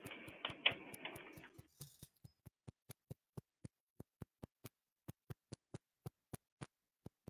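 Faint, evenly spaced ticking, about four ticks a second, with a brief muffled rustle in the first second or so.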